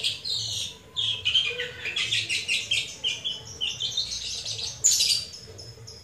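Caged long-tailed shrike (cendet) singing: fast, chattering runs of short repeated notes, loudest about five seconds in, with a brief lull just before the end.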